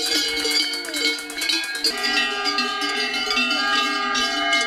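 Many cowbells ringing at once, shaken by a crowd of spectators along a ski-mountaineering race course, with shouts mixed in.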